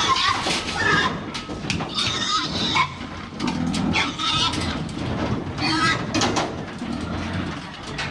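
Pigs grunting and squealing while one is pushed into a wire-mesh metal weighing crate, with repeated sharp clanks of the crate's metal bars.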